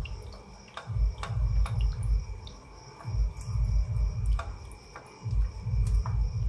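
A hand beating ghee by hand in a large steel plate, its palm rubbing and thudding against the metal in three bursts of quick strokes with short pauses between. The ghee is being whipped until light and fluffy.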